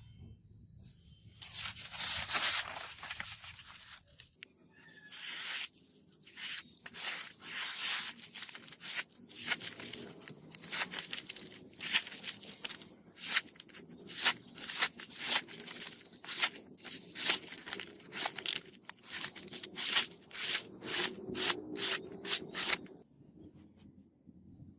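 Hand scraping or abrasive rubbing on the metal of an antique meat chopper being cleaned up. It begins with one long stroke, then settles into quick, even back-and-forth strokes, about two to three a second, and stops abruptly near the end.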